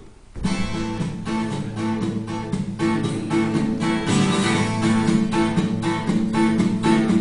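Twelve-string acoustic guitar playing a song's introduction: chords struck in a steady rhythm, about two or three strokes a second, starting about half a second in.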